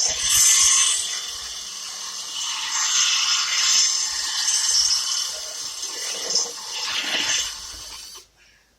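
Electric drill enlarging a hole, the bit cutting with a noisy sound that rises and falls in loudness and stops about eight seconds in.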